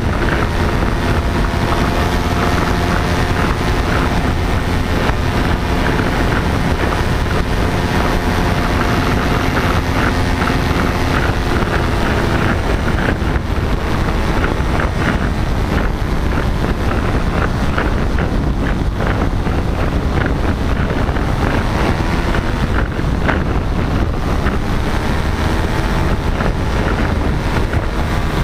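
Paramotor engine and propeller running steadily in flight, its pitch drifting up and down a little as the throttle changes, with wind buffeting the microphone.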